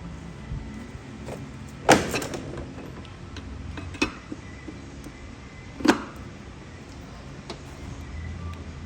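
Metal clinks and knocks of a 27 mm wrench on the EGR tube nut as it is tightened: three sharp knocks about two seconds apart, with a few fainter clicks between.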